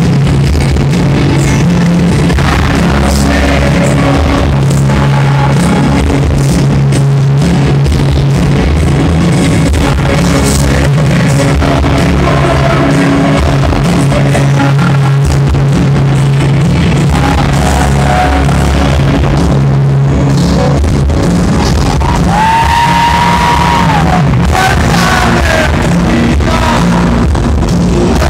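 Rock band playing live in an arena, loud, with singing over guitars, bass and drums, heard from the audience. Late on, a held note bends up and falls back.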